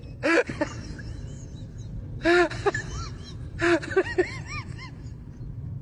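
A voice in three short, breathy bursts about a second and a half apart, each a quick run of rising-and-falling cries, over a steady low rumble.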